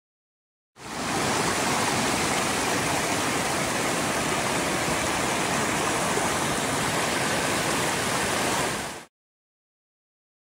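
Mountain river rushing over rocks: a steady, even roar of water that starts abruptly about a second in and cuts off abruptly near the end.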